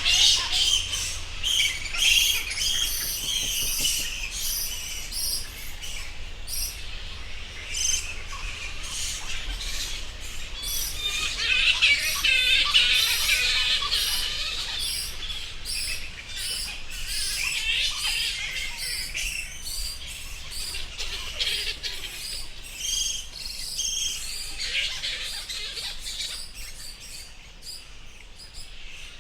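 A colony of flying foxes (fruit bats) roosting in trees, many overlapping high chirping calls, densest about halfway through and thinning out toward the end.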